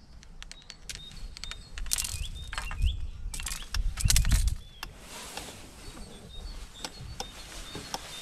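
Knocks, clicks and rustling from tackle and a landing net being handled close to the microphone, loudest between about two and five seconds in, over a low wind rumble. A small bird repeats short high chirps throughout.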